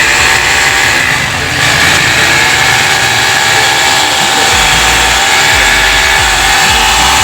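Electric hammer drill's motor running steadily, with a steady whine.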